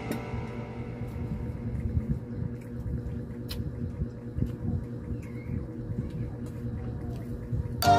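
Soft chewing with faint scattered mouth clicks over a low, steady room rumble. Background music cuts back in sharply near the end.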